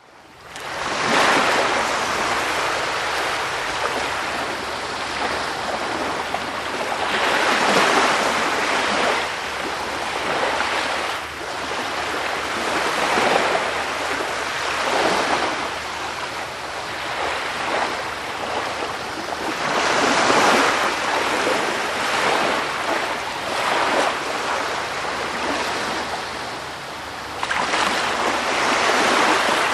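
Sea waves washing onto a shore: a steady rush of surf that swells and eases every few seconds.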